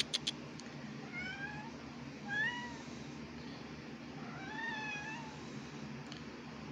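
Domestic cat meowing three times: two short rising meows, the second the loudest, then a longer meow that rises and falls near the middle. A few sharp clicks right at the start.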